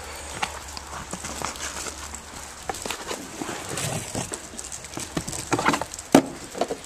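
Footsteps crunching on gravel with irregular scuffs and light knocks, and one sharper knock about six seconds in.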